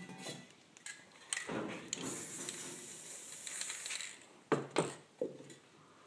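Aerosol spray paint can hissing steadily for about two and a half seconds, with sharp knocks before it and three in quick succession after it as things are handled on the work table.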